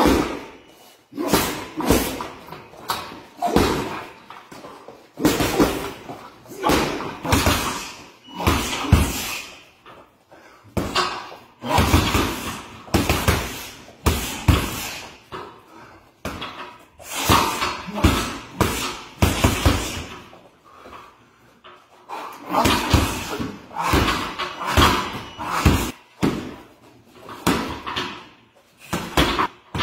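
Repeated impacts from MMA training: strikes or bodies hitting pads, a bag or mats, landing in quick irregular clusters with short pauses between.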